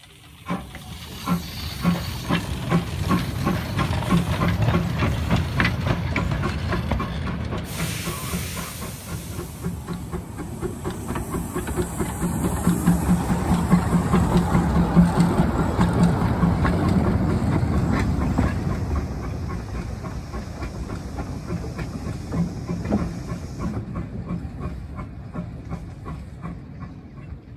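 Narrow-gauge Baldwin 4-6-0 tank steam locomotive moving under steam, a steady run of exhaust chuffs that grows louder toward the middle and fades again toward the end. A burst of steam hiss comes about eight seconds in.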